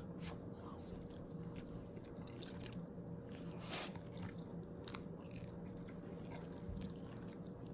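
A person chewing and biting a mouthful of instant noodles, with soft wet mouth clicks, one more distinct about halfway through. A steady low hum runs underneath.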